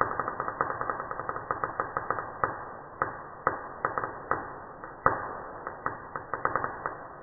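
Wire-feed welding arc crackling, with a steady hiss under irregular sharp pops from spatter. The pops thin out and stop near the end as the arc goes out.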